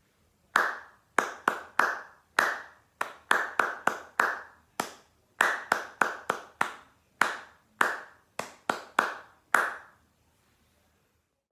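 One person clapping hands, about twenty sharp claps in an uneven rhythmic pattern with short runs of quick claps, clapping out a rhythm. The clapping stops about ten seconds in.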